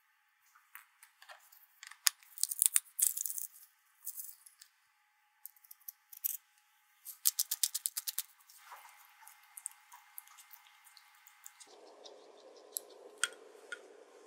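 Small kitchen sounds of a mayonnaise-based dressing being mixed in a glass bowl. A metal spoon clicks and scrapes against the bowl early on, and a fast run of clicks comes as pepper is added. About three seconds before the end, steady wet swishing starts as a silicone spatula stirs the thick sauce.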